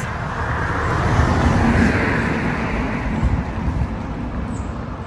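A car driving past, its tyre and engine noise rising to a peak about two seconds in and then fading away.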